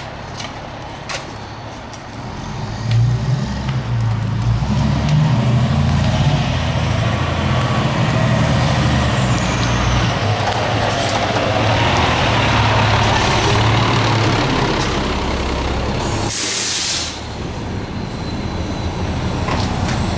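Fire engine's diesel engine rumbling as it rolls in, getting louder about two seconds in, then a short, loud hiss of its air brakes being set about three-quarters of the way through.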